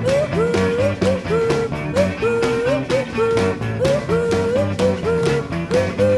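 Music: a garage rock and roll track with a repeating guitar riff of sliding notes over a steady beat.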